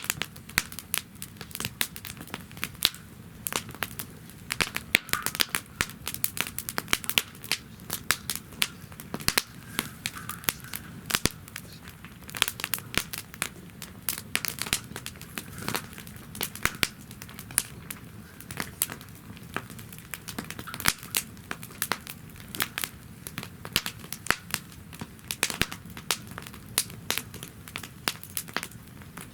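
Wood fire burning in a fire-pit stand, crackling with dense, irregular sharp pops, several a second, over a low steady hiss.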